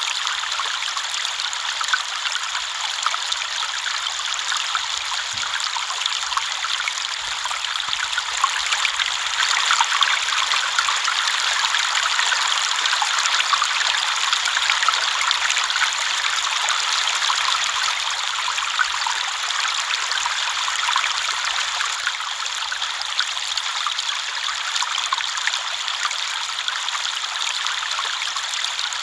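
Small river flowing over stones, a steady bright rush of water with fine splashing and babbling, a little louder midway.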